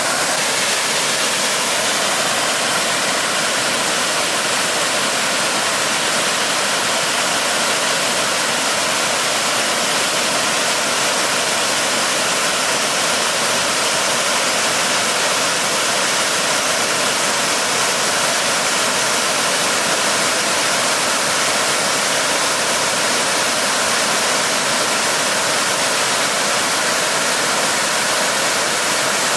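Waterfall: a large volume of water falling and crashing into the plunge pool, a steady loud rushing with most of its energy in the upper range and no change in level.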